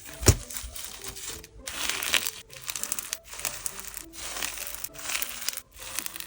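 Snow fizz slime being pressed and worked by fingers, giving a dense crackling and crunching in pulses with each squeeze. It sounds like a crackling wood fire, footsteps in thick snow and soda fizz all at once. There is a low thump just after the start.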